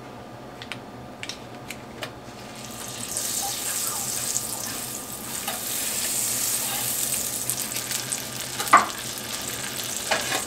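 Butter sizzling as it melts in hot olive oil in a skillet. The sizzle starts about three seconds in and holds steady after that. A few light clicks come before it and one sharp tap near the end.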